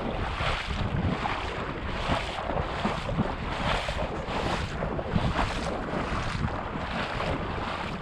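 Rhythmic sloshing of shallow marsh water, about two splashes a second, like someone wading, with wind buffeting the microphone.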